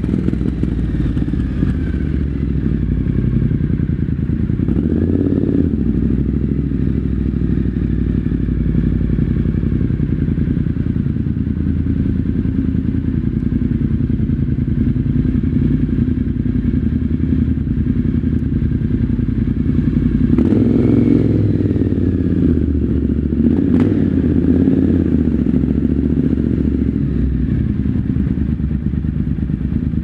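Triumph Scrambler 900's parallel-twin engine running at low speed and idling, with the sound echoing in an underground concrete car park. The engine note swells briefly about five seconds in and again around twenty seconds in, and a sharp click comes a few seconds after the second swell.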